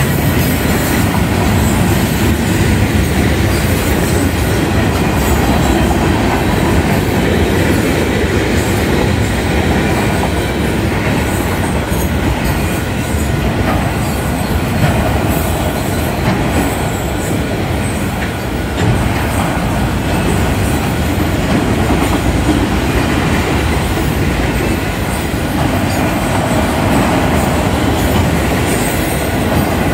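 Union Pacific manifest freight train's cars rolling past on the rails: a steady, loud rumble of wheels on track.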